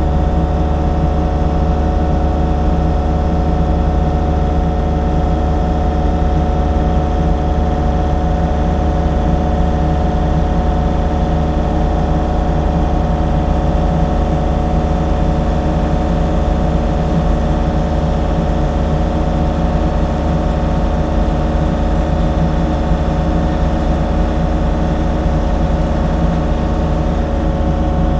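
Excavator's diesel engine running at a steady, unchanging speed.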